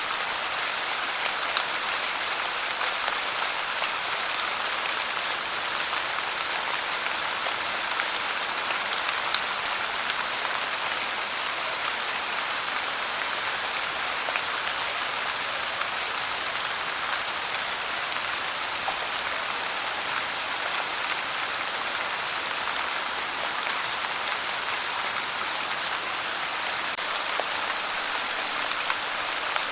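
Steady pouring rain: an even hiss of many drops with faint individual ticks. It neither builds nor eases.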